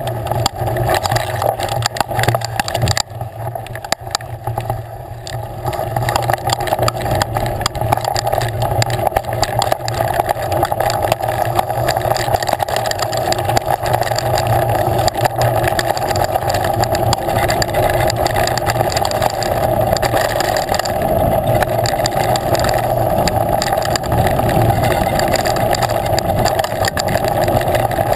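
Steady rush of wind and rolling noise on a bike-mounted camera during a mountain bike ride on a dirt trail, with constant small rattles and knocks from the tyres and bike over the rough ground.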